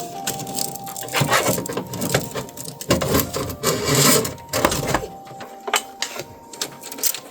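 Hands working on computer parts during a PC build: irregular clicks, taps and rattles of plastic and metal, in clusters about a second in, at three seconds and at four seconds.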